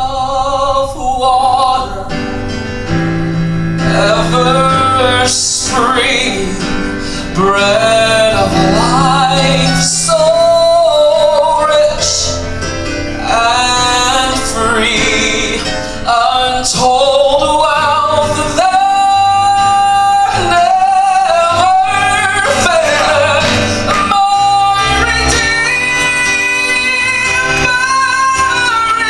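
Southern gospel male quartet singing live in harmony with piano accompaniment, a lead voice out front.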